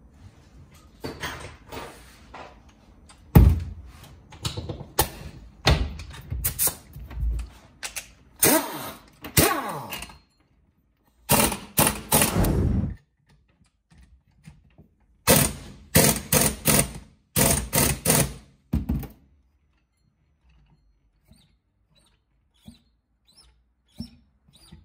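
Impact wrench hammering on a nut of a Honda Dio scooter engine's transmission: two runs of about a second and a half each, then a string of about five short bursts. Before that come scattered knocks and clunks of parts handled on a metal bench, with one sharp knock a few seconds in.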